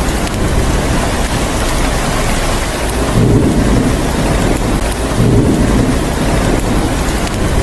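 Heavy steady rain with rolling thunder, the low rumble swelling twice, a little after three seconds in and again a little after five.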